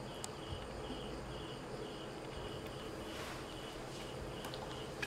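Steady high-pitched insect chirping in the background, short pulses about three a second, with a few faint small clicks.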